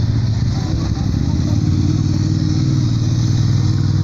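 A motor vehicle engine idling close by: a loud, steady low rumble with a fast, even pulse, and faint voices behind it.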